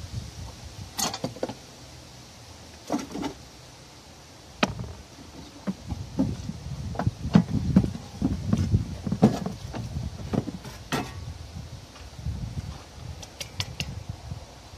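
Scattered metallic clicks, knocks and clanks of hand tools and a loosened, rusty steel battery tray being worked free and lifted out of a car's engine bay, with the sharpest clanks clustered in the middle.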